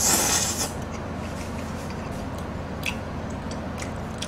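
A person slurping up a mouthful of noodles: one short, loud, hissy slurp at the start, followed by a few faint clicks over a steady low hum.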